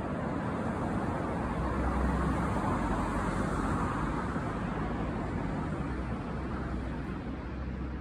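Road traffic noise: a vehicle passing, its rushing tyre and engine noise swelling about two seconds in and slowly fading away.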